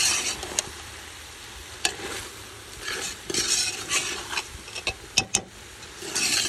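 A spoon stirring and scraping meat and dried shrimp around a metal cooking pot, in three scraping swishes with a few sharp clicks of the spoon against the pot.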